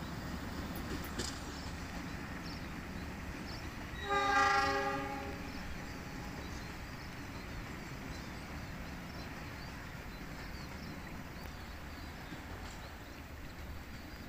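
Passenger train running along the track with a steady rumble, its locomotive horn sounding once for about a second, about four seconds in, as the train nears a level crossing.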